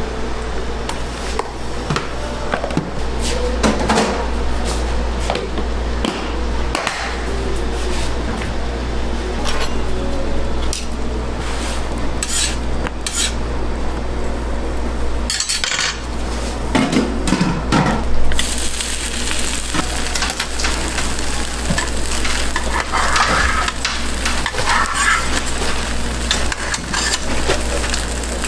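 Egg mixture frying on a flat steel griddle inside a rectangular metal frame, with clinks and scrapes of a metal ladle and spatula against the frame and griddle. The sizzle grows to a denser hiss about two-thirds of the way through, over a steady low hum.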